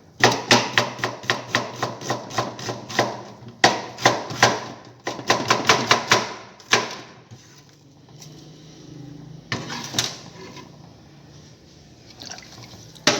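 Kitchen knife chopping onion on a cutting board: quick even strokes, about four a second, with a short break, then slowing to a few single knocks.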